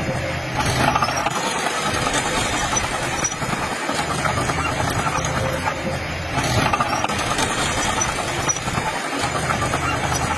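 Dump truck's diesel engine running steadily.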